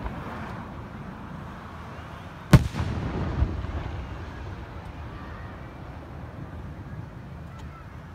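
Aerial firework shells bursting: a small pop at the start, then one loud sharp bang about two and a half seconds in, followed by a second, smaller bang and a rumbling tail that slowly fades.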